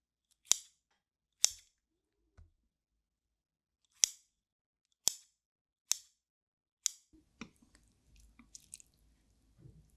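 Metal kitchen scissors snipping through grilled beef small intestine (gopchang), six sharp snips over the first seven seconds. After that come faint clicks and rustles of chopsticks moving through noodles.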